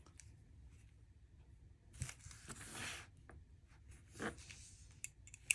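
Faint rustle of plastic packaging being handled, about a second long, followed by a shorter rustle and a sharp click near the end.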